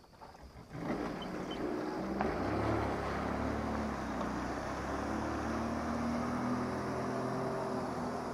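An engine comes on about a second in and keeps running steadily, with a low hum and a wavering drone.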